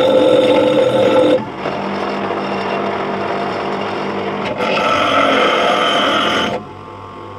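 Bench grinder grinding a hammerhead in two bouts. The first ends about a second and a half in, and the second runs for about two seconds from the middle. Between them the motor and wheel run on their own, more quietly.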